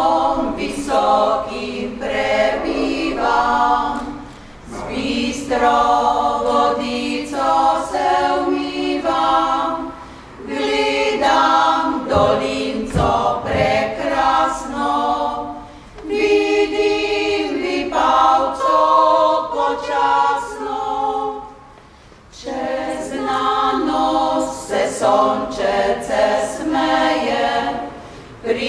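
Women's choir singing an old Slovenian folk song a cappella, in phrases of about five to six seconds with short breaks between them.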